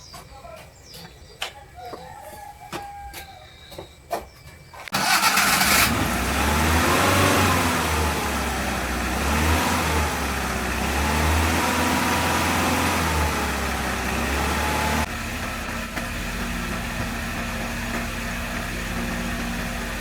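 Restored Suzuki truck's engine starting about five seconds in, then revved up and down several times before settling into a steady idle for the last few seconds. Before it starts there are only faint clicks and bird chirps.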